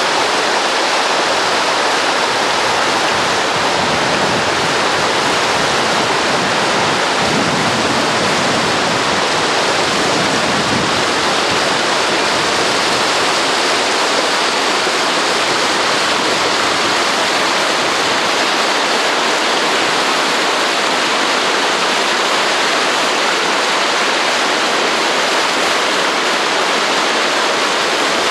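Whitewater rapids rushing over rock, a steady, loud rush of falling water.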